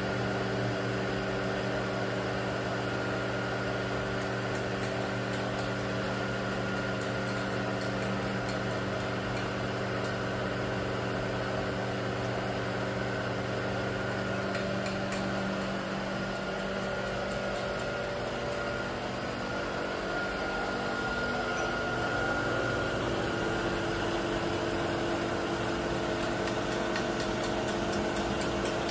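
Sharp HMV CNC knee mill running, a steady machine hum with several held tones. About two-thirds of the way through the lower tones fade and a higher one comes in, as the machine changes speed.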